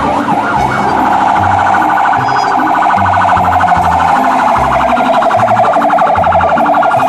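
Toy fire engine's battery-powered electronic siren: a few quick rising and falling wails, then, under a second in, a fast, steady warbling siren tone.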